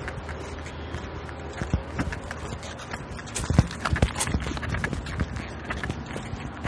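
Footsteps on a concrete sidewalk with the rustle and rattle of the walker's clothing and gear, heard through a police body-worn camera. It is an irregular patter of knocks, with a few louder ones a little past halfway.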